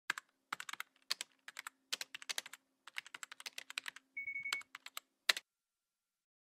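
Typing on a keyboard: runs of quick, irregular keystroke clicks that stop a little over five seconds in, over a faint steady hum. A short steady high tone sounds about four seconds in.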